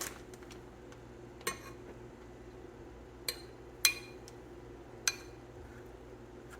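A spoon clinking against a bowl four times, short sharp taps, as a spoonful of enchilada sauce is put in and spread; the loudest tap comes about four seconds in.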